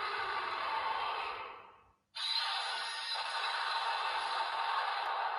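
Toy card reader's speaker playing a character sound effect for a scanned Ultraman Dimension card: a rushing, noise-like sound with no clear pitch, in two long stretches split by a short gap at about two seconds.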